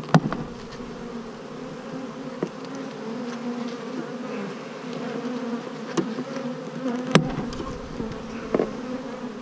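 A mass of honeybees from an opened bee package buzzing in a steady hum, with a few sharp knocks near the start and about six and seven seconds in.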